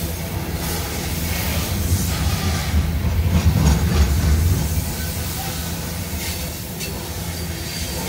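Loaded CSX coal hopper cars rolling past: a steady low rumble of steel wheels on rail with scattered clacks, loudest about three to four and a half seconds in.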